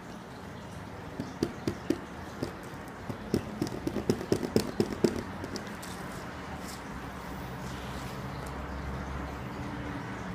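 Pencil tip tapping and clicking on a plastic canvas sheet while marking measurements along a ruler: a string of light, irregular taps that come faster in the middle, over a faint steady hum.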